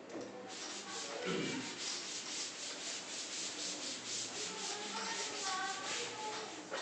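A chalkboard being wiped with a hand-held duster: quick back-and-forth rubbing strokes, about three or four a second, starting about half a second in.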